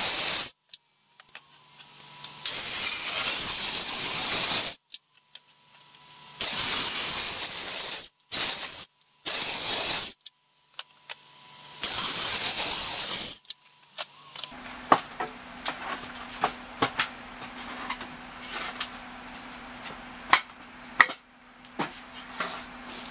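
Handheld circular saw cutting through a wooden 4x4 post in several loud bursts of a few seconds each, with abrupt breaks between them. After about fourteen seconds the saw is quiet and there are sharp wooden knocks and clunks as the cut pieces are handled, over a low steady hum.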